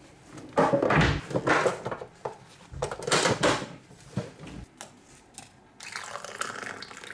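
Knocks and rattling of mugs and a metal tea tin being handled on a kitchen worktop, then, about six seconds in, water pouring from an electric kettle into a mug.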